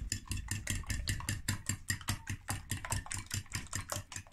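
Fork beating eggs in a bowl, clicking against the bowl in a fast, even rhythm of about seven strokes a second.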